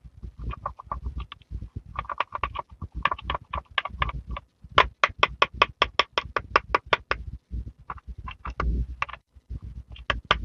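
A plastic dotting tool scraping and tapping pressed eyeshadow out of a plastic palette pan, making crisp gritty scrapes and clicks. In the middle there is a quick, even run of taps, about six a second.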